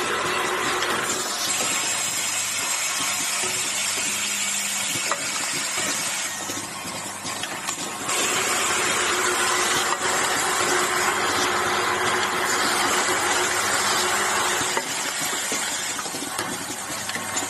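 Automatic aerosol-cap assembly machine running: a steady hiss with a low hum, dipping twice for about two seconds, about six seconds in and again near the end, with a few faint clicks.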